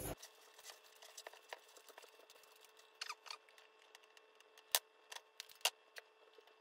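Faint rustling and small clicks of a bundle of insulated PSU wires being handled and sorted by hand, with two sharper clicks a little under a second apart past the middle.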